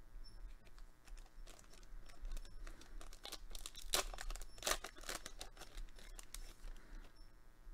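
A foil trading-card booster pack being torn open, its wrapper crinkling and crackling, with the sharpest tears about halfway through.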